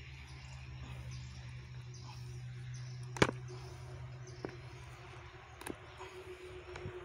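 Cassava roots snapping in hard, dry soil as the plant is rocked and pulled up by its stem: one sharp snap about three seconds in, then two fainter ones, over a faint steady low hum.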